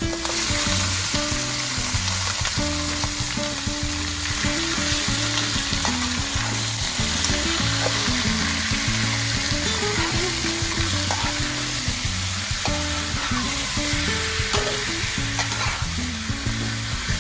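Food frying in a hot pan with a steady, dense sizzle, stirred now and then, with a few light utensil clicks.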